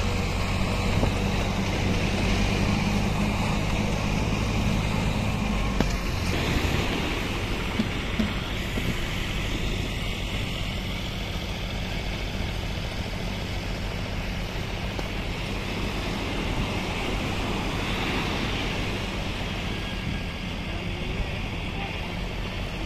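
Steady wash of ocean surf on the beach with wind buffeting the microphone, and a heavier low rumble for about the first six seconds.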